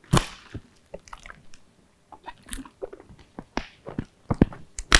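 Plastic bottle being handled and crinkled, giving irregular sharp crackles and clicks, while its screw cap is twisted, with a loud snap near the end.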